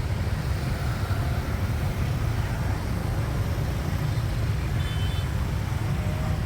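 Steady low rumble of street traffic with a general outdoor background hum, and a few faint, brief tones near the end.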